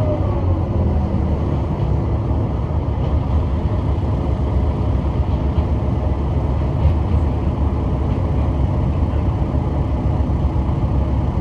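Kishu Railway diesel railcar running, heard from inside the car: a steady low rumble of engine and wheels. An engine note falls away in pitch in the first moment.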